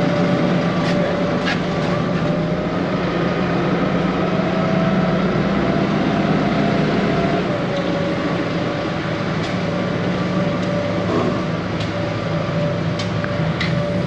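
A motor vehicle running steadily: a low engine drone with a faint wavering whine above it and a dense rushing noise, with a few light clicks near the end.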